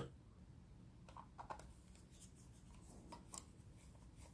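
Near silence with a few faint clicks and taps from handling a computer mouse and a screwdriver while screws are being driven in.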